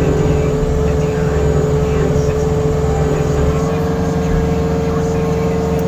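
John Deere 325 skid steer's diesel engine running steadily at high speed, driving the Jenkins stump grinder's hydraulics, with a steady high whine over the engine drone. The whine shifts pitch slightly a little past halfway.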